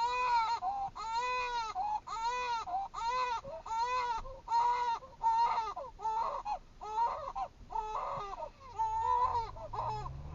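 A young child crying in rhythmic, repeated wails, about one to one and a half a second, each cry rising and then falling in pitch.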